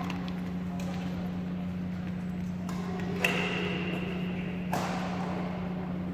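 Two sharp racket strikes on a badminton shuttlecock about a second and a half apart, the first with a brief ringing ping from the strings, over a steady low hum in the hall.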